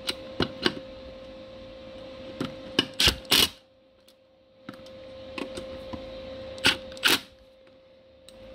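Screws being driven tight into the bearing retainer plate inside a ZF S5D gearbox housing: a steady mechanical whirr, dipping briefly about four seconds in, broken by sharp metallic clicks, the loudest about three seconds in and again near seven seconds.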